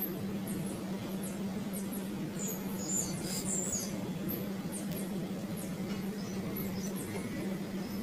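Nestling birds giving thin, very high cheeps, a few a second, with a busier flurry of calls around the middle, over a steady low hum.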